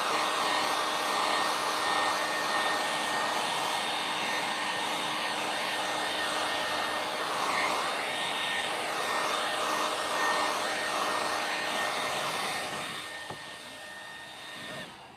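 Conair handheld hair dryer running steadily, blowing hot air over freshly sprayed silver paint to speed its drying. It fades over the last few seconds and cuts off at the very end.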